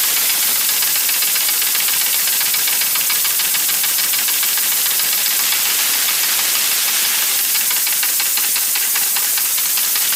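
Compressed air hissing steadily through a homemade copper-pipe steam engine built from hardware-store parts and run on shop air, with a fast faint ticking joining in near the end as the engine tries to turn.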